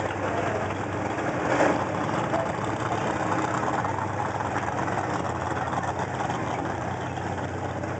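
Pulling pickup truck's engine idling steadily while the truck backs slowly up to the sled, with one brief louder burst about a second and a half in.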